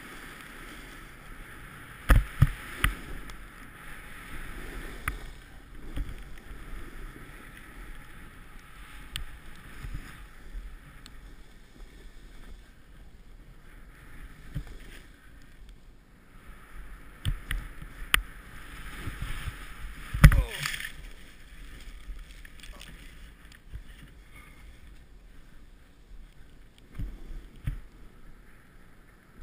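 Snowboard sliding and carving through deep powder snow, a hissing swish that swells and fades with each turn. Sharp knocks now and then, the loudest about twenty seconds in.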